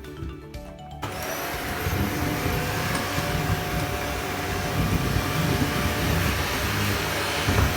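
Shark Anti Hair Wrap upright vacuum cleaner running, coming in abruptly about a second in and then running steadily with a constant whine over its suction noise.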